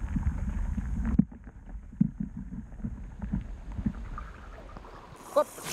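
Canoe moving on the water: scattered low knocks and bumps, with wind rumble on the microphone during the first second.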